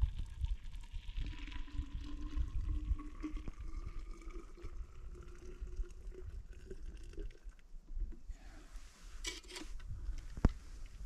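Boiling water from melted snow poured into a Nalgene bottle, the bottle's note rising steadily as it fills. The pouring stops about eight seconds in, followed by handling noise and one sharp click near the end.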